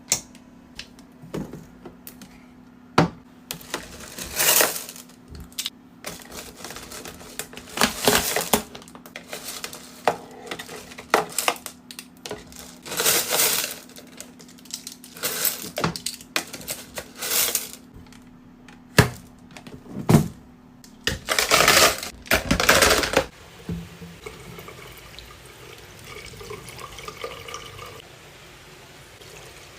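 Brushes being cleaned with water: repeated bursts of wet swishing and scrubbing, with sharp clicks and taps in between. It goes quieter after about 23 seconds.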